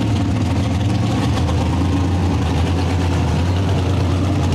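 A mega truck's big engine running steadily at an even, low speed, with no revving.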